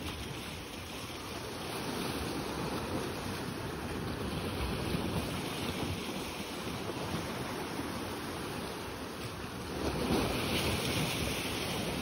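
Sea waves washing against the rocks at the shoreline, with wind rumbling on the microphone. A louder wash swells up about ten seconds in.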